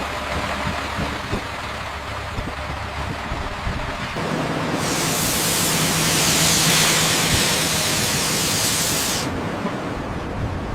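Heavy machinery running steadily, with a low hum that sets in about four seconds in. A loud hiss joins about a second later and lasts about four seconds before stopping abruptly.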